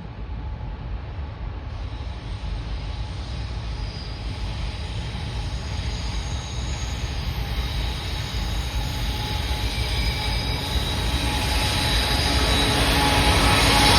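A Canadian National freight train approaching, its rumble growing steadily louder, with thin high-pitched wheel squeal that gets stronger near the end.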